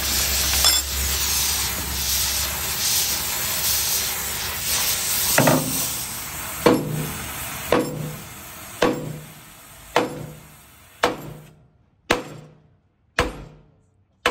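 A steady hiss, then from about five seconds in, hammer blows on a steel truck-chassis rivet about once a second, each ringing briefly and dying away. The hiss cuts off about eleven seconds in, leaving only the blows.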